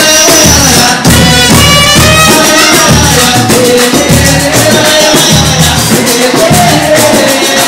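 Pagode (Brazilian samba) music playing loud and continuous, with shaken, tambourine-like percussion over a steady beat and melodic lines above.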